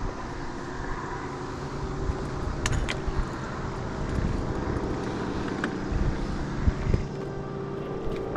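Steady engine-like hum with a few low tones, broken by a few sharp clicks and low thumps.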